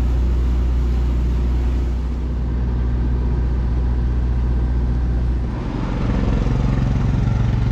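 An engine runs steadily for the first part. About two-thirds of the way in, a four-wheeler ATV's engine comes up close and runs louder.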